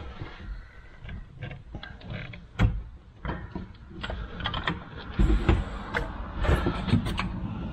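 Irregular knocks and clicks of metal suspension parts being handled and shifted under a car during work on the rear cradle, with a sharp knock about two and a half seconds in and a cluster of knocks around five seconds in.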